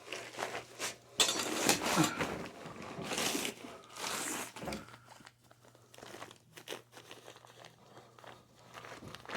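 Crinkling, rustling handling noise in several bursts, followed by scattered light clicks and taps.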